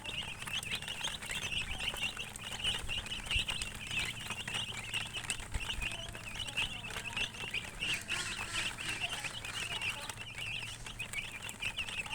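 A group of chicks peeping continuously: a dense stream of short, high chirps overlapping one another.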